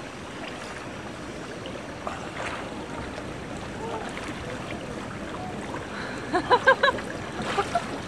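Pool water lapping and sloshing steadily as swimmers move through it. A little after six seconds in, a short run of about five quick, high pitched notes stands out as the loudest sound.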